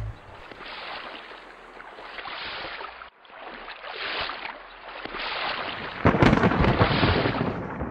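Thunderstorm: rumbling thunder over a rain-like hiss, swelling and fading several times, with the loudest rumble about six seconds in.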